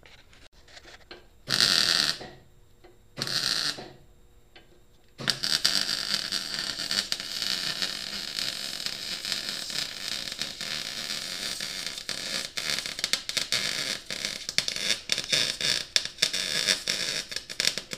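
MIG welder striking two short tack welds, then running a continuous weld bead for about thirteen seconds, crackling with many sharp pops.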